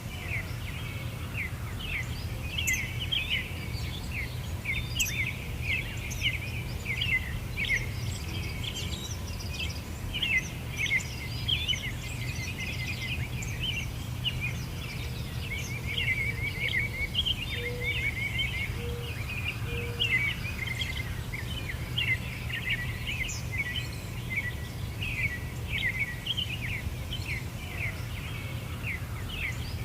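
A chorus of small birds chirping and twittering continuously, many quick calls overlapping, over a steady low rumble.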